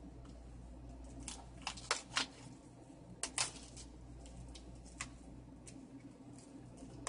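A Blu-ray case and its plastic packaging being handled, giving scattered light clicks and rustles over a low steady hum.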